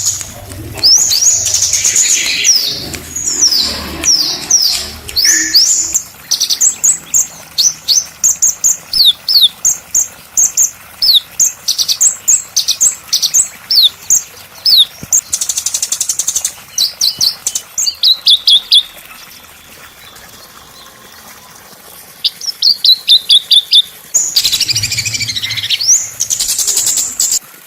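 Small songbirds singing: fast runs of sharp, high chirps that sweep downward, mixed with short trills. The song breaks off for a few quieter seconds about two-thirds of the way through, then starts again.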